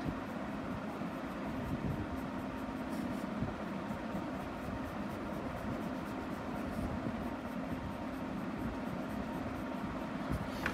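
A colouring pen scratching on paper in many short, quick strokes as a drawing is coloured in, over a steady low hum.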